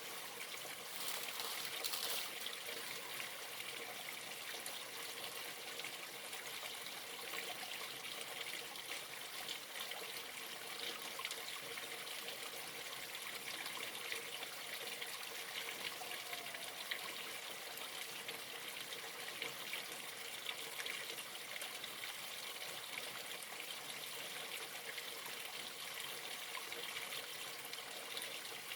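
Stream water running steadily, an even rushing noise of flowing water.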